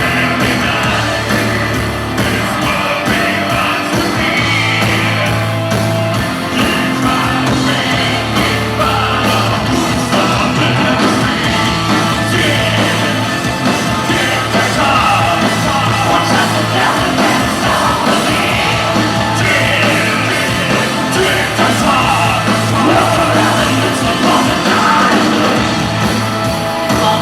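Industrial metal band playing live at full volume: distorted guitars, heavy bass and drums, with shouted vocals over the top, echoing in a large hall.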